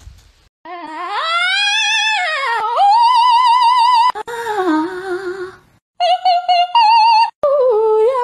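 A high, operatic-style singing voice with a strong vibrato. It slides up and back down, holds a long wavering high note, then breaks into lower and shorter notes, with abrupt cuts and a brief pause between phrases.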